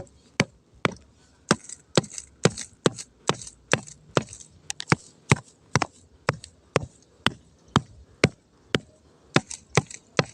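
Repeated sharp wooden knocks, about two a second at an even pace, as a flagpole is pounded back into the ground to stand it upright.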